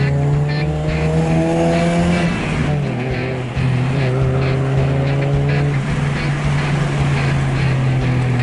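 Car engine heard from inside the cabin, its pitch rising as it accelerates, dropping at a gear change about two and a half seconds in, then pulling at a steady pitch.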